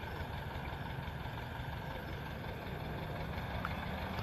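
Massey Ferguson 375's Perkins diesel engine idling steadily.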